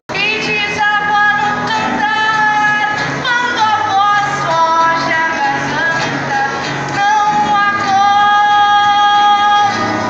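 A woman singing into a microphone, with long held notes, over acoustic guitar accompaniment, amplified through loudspeakers.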